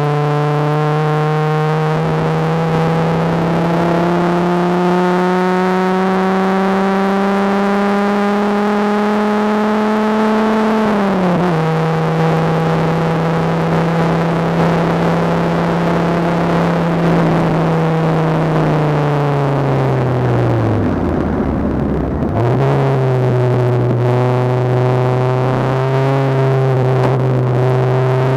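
Dodge Viper RT/10's V10 engine under full throttle, heard from the cockpit. Its pitch climbs slowly for about ten seconds, drops at a gear change, holds steady, then falls away sharply about twenty seconds in before climbing again near the end.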